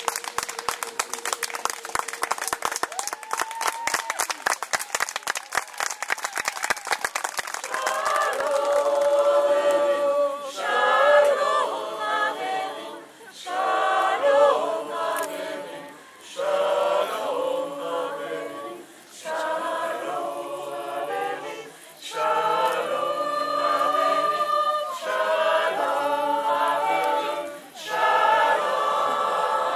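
Audience applause for the first several seconds, then a mixed choir of men and women singing a cappella in short phrases with brief pauses between them.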